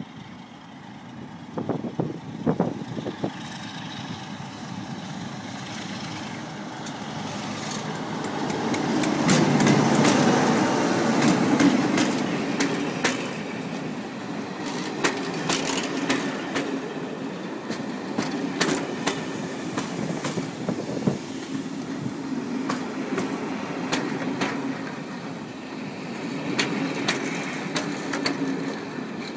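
Class 47 diesel locomotive, with its Sulzer V12 engine, approaching and passing close by, loudest about ten seconds in. Its passenger coaches then roll past with a run of clicks from the wheels crossing rail joints.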